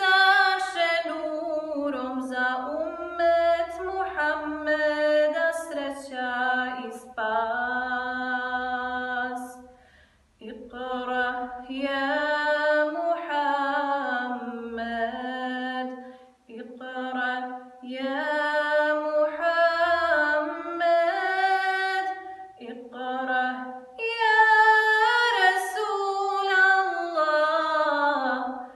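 A solo woman's voice singing a kasida, an Islamic devotional hymn, unaccompanied, in long ornamented phrases that glide up and down in pitch, with short breaks for breath between phrases.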